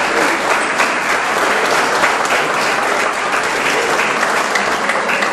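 Theatre audience applauding, steady and sustained.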